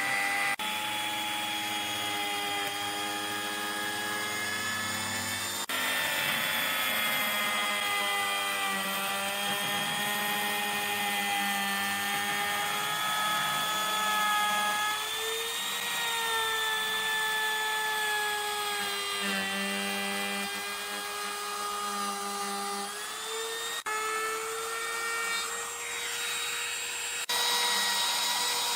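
Electric woodworking power tools running in a series of short clips: a steady motor whine that slowly rises and falls in pitch as the tool takes and eases off its load, with abrupt changes in the sound at the cuts.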